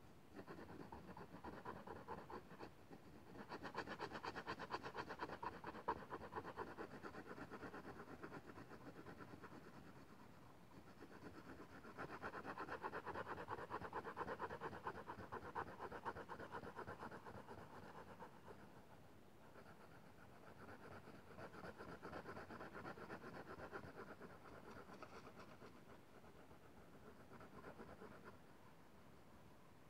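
Black pencil scratching rapidly back and forth on paper, shading a dark area with dense strokes. It comes in several bouts broken by short pauses.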